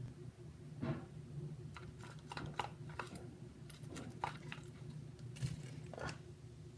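Slime being stirred with a utensil in a bowl as it activates: irregular soft sticky squelches and light clicks of the utensil against the bowl, over a faint steady hum.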